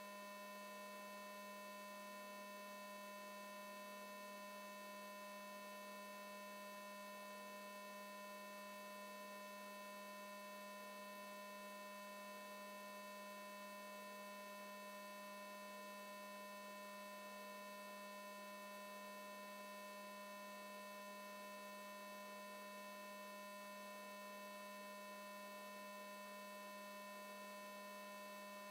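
Faint, steady electrical mains hum with a buzzy row of overtones, unchanging throughout; no other sound.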